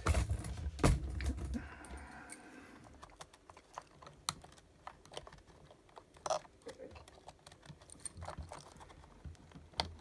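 Irregular small clicks and rattles of hands handling wiring, connectors and a circuit board inside a plastic robot-arm shell, with a few heavier low bumps in the first second and a half.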